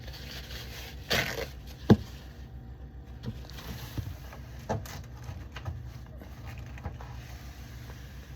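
Handling sounds from cleaning out a refrigerator: a short hiss about a second in, a sharp knock just after it, then scattered light clicks and knocks over a steady low hum.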